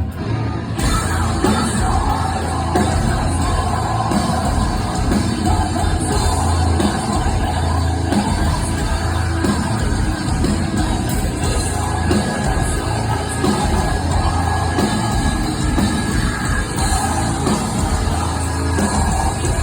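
A heavy metal band playing live in a hall, with sung and yelled vocals over a dense, heavy bass-and-drum sound.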